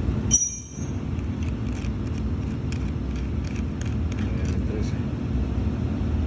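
Steady low rumble of background noise, with a short, high ringing clink about half a second in and scattered light clicks and taps after it.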